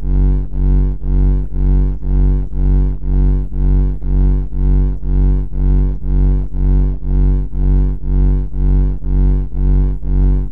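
A loud, low, buzzing drone that pulses evenly about twice a second.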